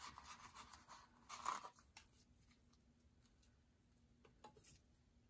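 Faint rustling of die-cut paper stickers being sorted by hand inside a paper pocket, louder briefly about a second and a half in, then a few light taps near the end as stickers are set down.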